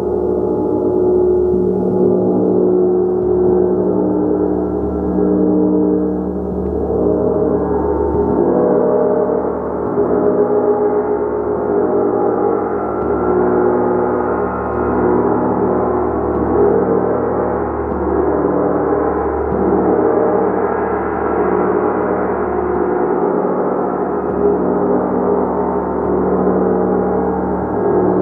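Gong played continuously, a sustained wash of many overlapping ringing tones that gently swells and eases without a break.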